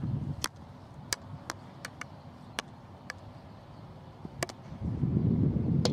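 Field hockey stick striking the ball: several sharp clacks at uneven intervals. A low rumble comes in near the end.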